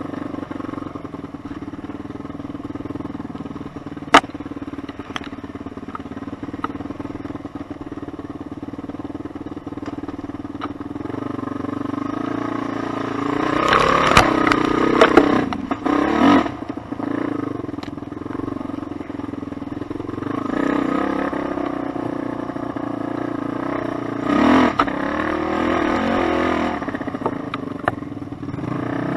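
Suzuki LT-Z400 quad's single-cylinder four-stroke engine running under way, with a sharp knock about four seconds in. Louder bursts of revving and rattling come in the middle and again near the end.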